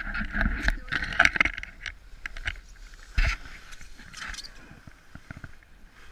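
Green plastic sled scraping over snow while evergreen branches brush and crackle against it and the camera. A run of loud crackles comes in the first second and a half and another about three seconds in, then it quietens.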